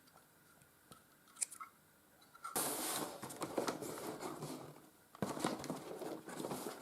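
Packaging being handled: a few light clicks, then from about two and a half seconds in, busy crinkling and rustling as the power adapters are unpacked.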